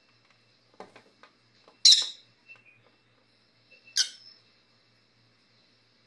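Small parrot giving two short, loud, shrill squawks about two seconds apart, with a few faint taps before the first.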